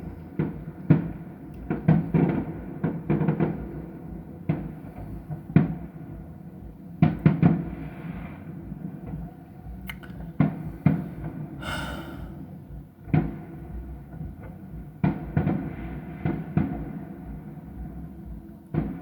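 Distant fireworks display: an irregular series of bangs from shells bursting, some in quick clusters and some spaced a second or more apart.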